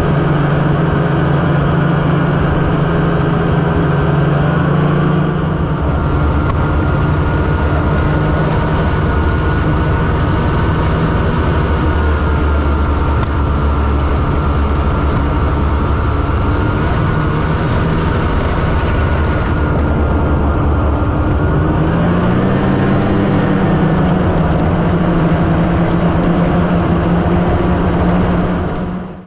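Snowmobile engine running steadily at trail speed. Its note shifts about six seconds in and rises slightly a little over twenty seconds in.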